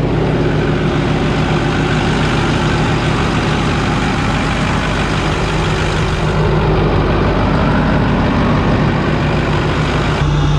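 Ford 6.4-litre Power Stroke V8 turbo-diesel of a 2009 F-350 Super Duty idling steadily just after starting, with a rapid, even diesel clatter.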